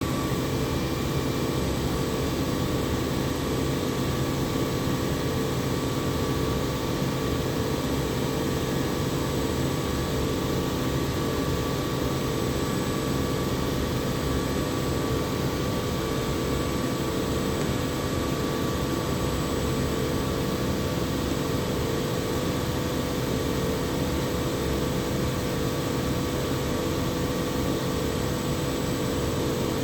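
Industrial air compressor running steadily: a constant machine noise with a few steady tones above it, not changing in level.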